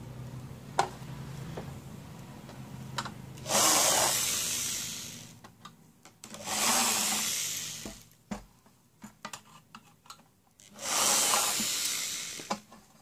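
Screws being worked out of a satellite receiver's metal case with a screwdriver: three runs of about a second and a half each, with small clicks and knocks of the tool and case between them.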